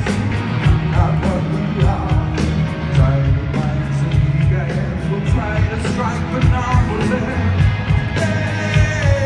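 Live rock band playing through a stadium PA with a steady drumbeat and a singer, heard from far back in the stands.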